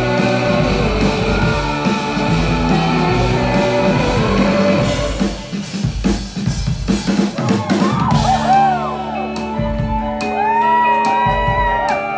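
Indie rock band playing live with electric guitars, bass and drums: a dense full-band passage, then from about eight seconds in a lead electric guitar line bending up and down in pitch over steady held chords, with cymbals.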